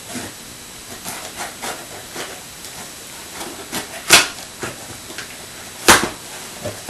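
A shipping box being opened by hand: a run of short rustling and scraping noises, with two much louder sharp noises about four and six seconds in.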